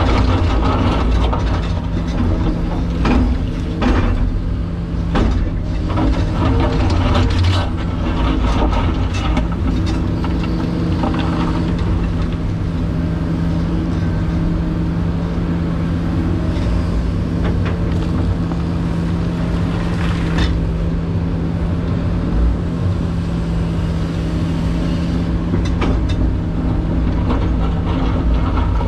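Excavator's diesel engine and hydraulics running steadily under digging load, heard from inside the cab. Over it come short knocks and scrapes from the steel bucket digging into rocky soil, most often in the first several seconds and now and then after.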